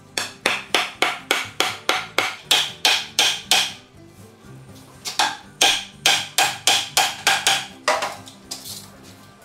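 Rapid hammer blows, about four a second, driving wooden wagon-wheel spokes into an iron hub. They come in two runs with a pause near the middle and a few slower blows near the end, over background music.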